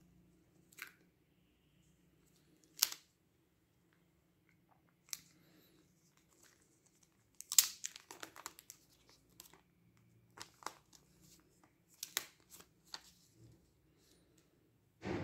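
Clear plastic protective film being peeled off a new smartphone and handled, crinkling and crackling in short irregular bursts, the busiest and loudest stretch about halfway through. A dull bump at the very end.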